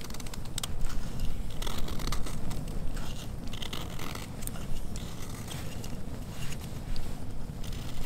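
Folding knife shaving a flat wooden slat in short, irregular scraping strokes, with a wood fire crackling.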